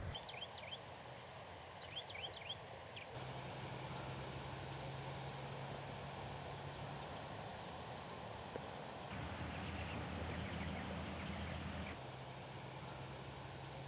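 Outdoor natural ambience: small birds chirping now and then over a faint, even background with a low steady hum. The background changes abruptly a few times as the scene cuts.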